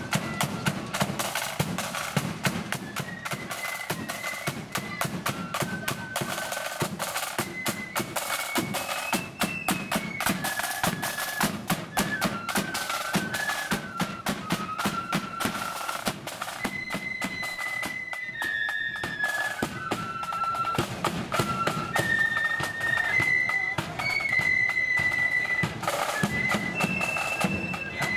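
Marching flute band playing a tune on flutes, a high melody stepping from note to note, with side drums and a bass drum beating out the march.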